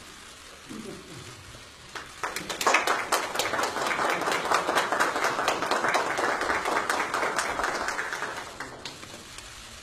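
A small group of people applauding by hand, starting about two seconds in, swelling and then dying away near the end.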